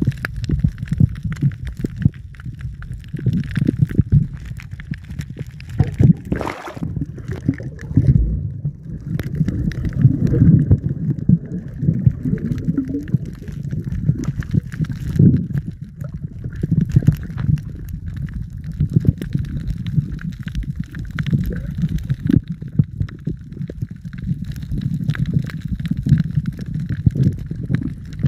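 Muffled underwater water noise picked up by a submerged camera: a low, uneven gurgling rumble with scattered small knocks, and a brief louder rush about six seconds in.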